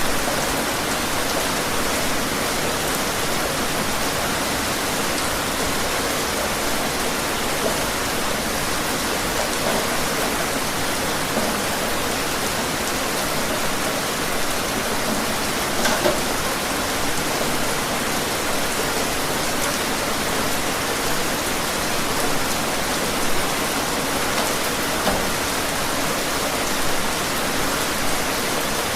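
Steady heavy rain falling, an even hiss with occasional louder individual drop hits.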